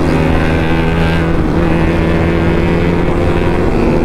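Motorcycle engine running steadily under way, holding one even note, with a rush of wind noise over it.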